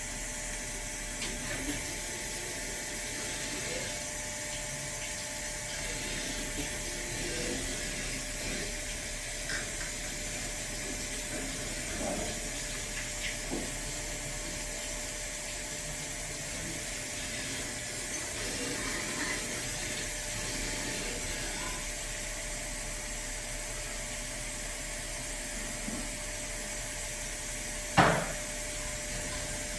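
CNC plunge cylindrical grinder running: a steady hiss with a faint hum, a few light knocks, and one sharp clunk near the end.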